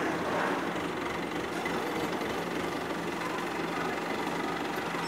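ACE mobile crane's diesel engine running steadily, a low engine hum under a general yard noise.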